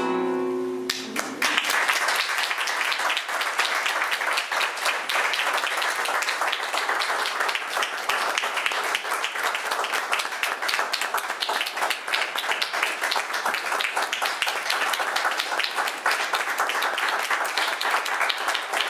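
A flamenco guitar's final chord rings for about a second, then an audience breaks into steady applause that carries on throughout.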